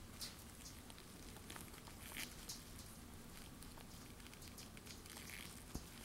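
Faint crackling and rubbing of gloved fingers as they turn a ring, with scattered small ticks and one sharper tick near the end, over a low steady hiss.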